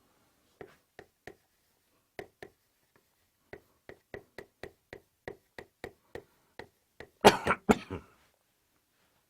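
A man sneezing: several loud, sharp bursts in quick succession about seven seconds in, after a run of faint, evenly spaced ticks.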